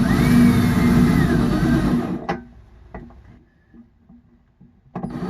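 A small power tool's motor, most likely a cordless drill, whirring in two bursts of about two seconds each. Both bursts start and stop sharply, with a few light clicks in between.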